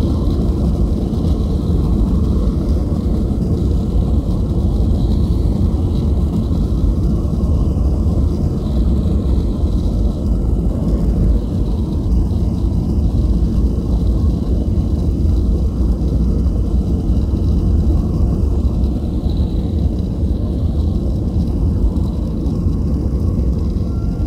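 Boeing 737 airliner on its takeoff roll, heard from inside the cabin: the jet engines at takeoff thrust, with a steady low rumble from the wheels running on the runway and a faint high whine above it.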